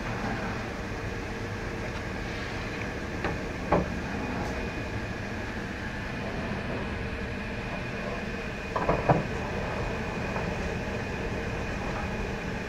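Heavy marble slabs being stood against a stack, knocking stone on stone: two knocks a little under four seconds in, and a short cluster of knocks about nine seconds in. A steady mechanical hum runs underneath.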